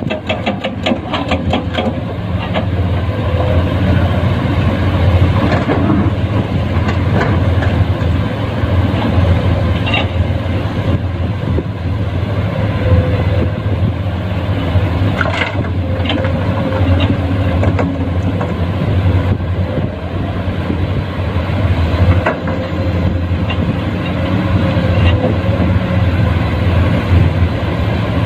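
Diesel engine of a Komatsu PC210-10 hydraulic excavator running steadily under working load, with a few sharp knocks about a third and halfway through.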